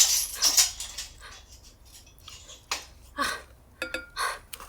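Ferrocerium fire-starter rod scraped hard twice in quick succession, about half a second apart, followed by a few softer scraping and rustling noises as the tinder is tended.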